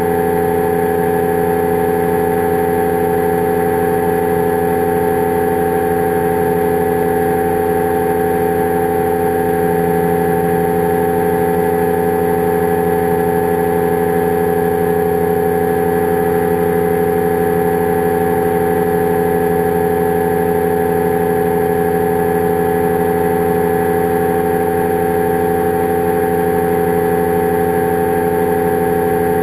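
Powered parachute's engine and propeller running at a steady cruise setting, heard from on board the aircraft: an unchanging drone made of several steady tones over a bed of noise.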